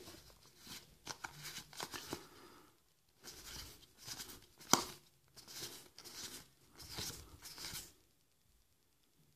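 Magic: The Gathering trading cards being slid one at a time off a small stack held in the hands. It is a series of faint short swishes with one sharp snap about halfway through, and the swishes stop about eight seconds in.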